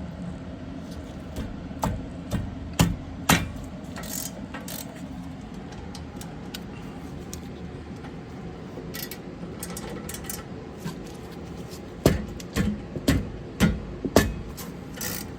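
Metal tools clinking and knocking against brake caliper parts: a few sharp knocks about two to three seconds in, and a quick run of them near the end, over a steady low hum.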